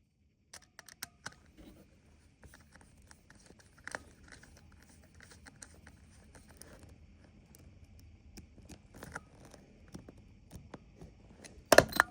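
Scattered small clicks and scrapes from hands working wires and small hardware into a fire-alarm pull station, with a pair of louder clicks near the end.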